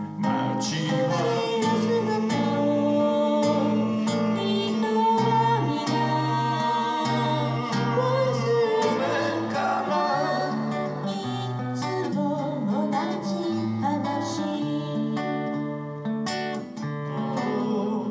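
Acoustic guitar strummed and picked in a steady accompaniment while a voice sings a melody over it.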